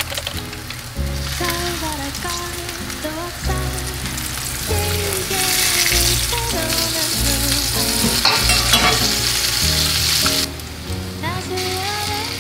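Flour-coated pieces sizzling in shallow hot oil in a frying pan, the sizzle swelling from about five seconds in to about ten as the pieces are turned with tongs. Background music with a bass line plays under it.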